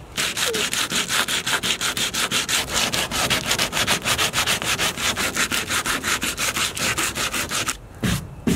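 Coarse sandpaper rubbed by hand in fast back-and-forth strokes, about six a second, over a hardened JB Weld plastic-bonder patch on a plastic (HDPE) canoe hull, sanding the repair flush. The scraping stops near the end, followed by a brief low sound.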